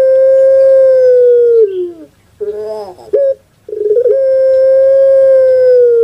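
Puter pelung (Barbary dove) cooing: two long drawn-out coos, each held on one steady pitch for about two seconds before sliding down, with a few short broken notes between them.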